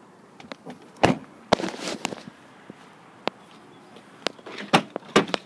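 A truck's rear passenger door shut with a heavy thud about a second in, then footsteps and handling noise, with a few sharp clicks near the end.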